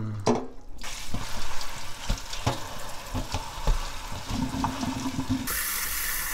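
Hands kneading and rubbing wet green seaweed (gamtae) in a stainless steel colander and bowl, with irregular wet squelches and splashes, to wash out sand and grit. About five and a half seconds in, water from a tap starts pouring steadily into the bowl.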